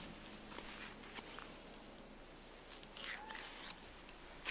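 Quiet background hiss with a few faint soft rustles and ticks, and a short chirp-like squeak about three seconds in.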